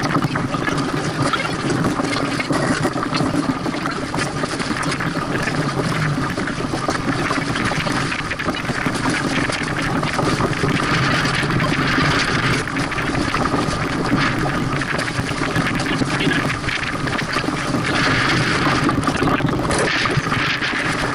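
Steady rush of wind and water aboard a small sailboat under way in choppy water, played back sped up eightfold, with faint garbled voices mixed in.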